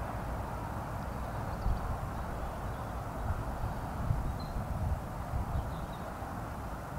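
Wind buffeting an outdoor camera microphone: a steady, fluttering low rumble over a hiss of moving air.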